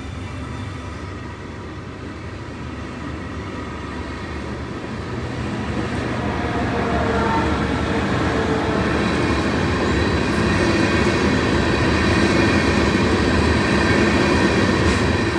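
Brightline passenger train rolling past, followed by a freight train of gondola cars passing close, with steel wheels rumbling and clattering on the rails. The noise builds over the first half and stays loud.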